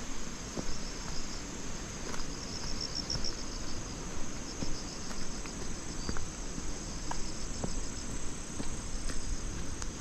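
Crickets singing in a steady high-pitched chorus over a constant low rumble of wind, with scattered soft taps.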